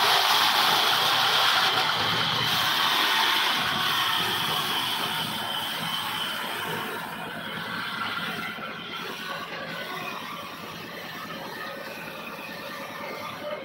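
Vertical band sawmill running, its blade cutting through a large wooden log, with a high steady whine that fades out about halfway through as the sound grows gradually quieter.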